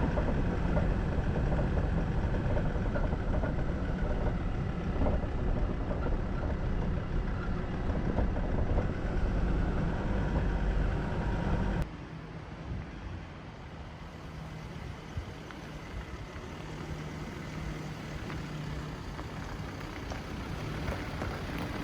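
Engine and road noise of a car driving, heard from inside the vehicle. About twelve seconds in it drops suddenly to a quieter, steady hum.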